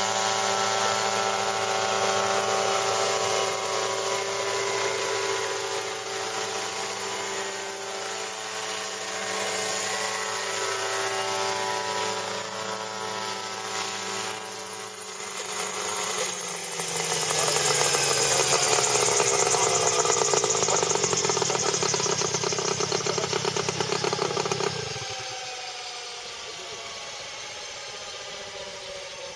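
Yanmar AYH-3 unmanned agricultural helicopter's engine and rotor running loud and steady in flight, the pitch falling as it comes in to land. About 25 s in the sound drops suddenly to a quieter running, with the helicopter on the ground and its rotor still turning.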